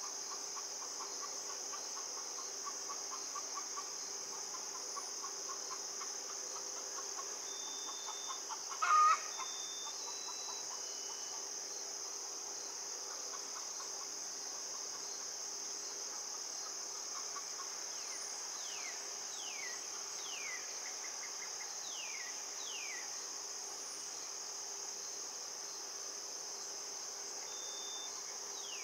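Outdoor ambience dominated by a steady, high insect chorus of crickets, over a faint steady low hum. About nine seconds in there is a short, loud call, and from about 18 to 23 seconds a bird gives a series of quick falling whistled notes.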